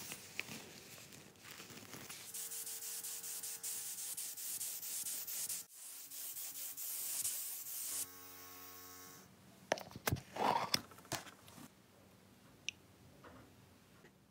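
Scratchy rubbing and sanding strokes on a small metal toy-car part, then a steady hiss of spray painting. A few light clicks and knocks follow near the end.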